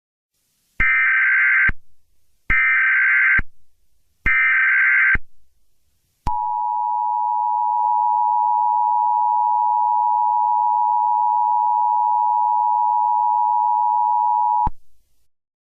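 Emergency Alert System tones. First come three short screechy SAME header data bursts, each under a second and about a second apart. Then the two-tone EAS attention signal, a steady dissonant chord, holds for about eight seconds and cuts off abruptly.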